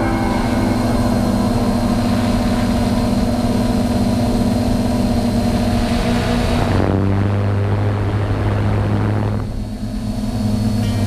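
DJI F450 Flame Wheel quadcopter's electric motors and propellers buzzing steadily with wind rush, heard from the GoPro on the drone itself. About seven seconds in the hiss falls away and the sound eases, then builds again near the end.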